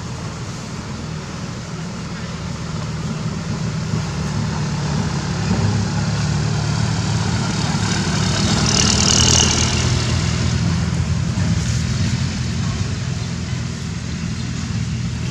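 A vehicle engine running steadily with a low drone, louder around the middle. A brief high-pitched sound rises over it about nine seconds in.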